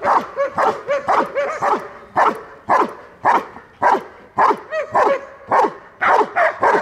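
Belgian Malinois barking repeatedly at about two barks a second, with a few short whines between barks in the first two seconds and again about five seconds in. This is agitation barking at a decoy in protection training.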